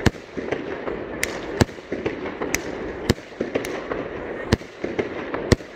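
Fireworks going off: an irregular run of sharp bangs and cracks, about two a second, over a steady crackle.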